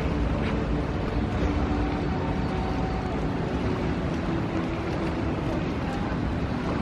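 Steady outdoor rumble of fast-flowing floodwater and city traffic, with wind buffeting the microphone.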